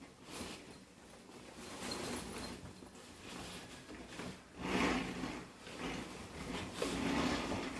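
Cover of a collapsible baby wardrobe rustling and scraping as it is pulled down over the shelf frame, louder about five seconds in and again near the end.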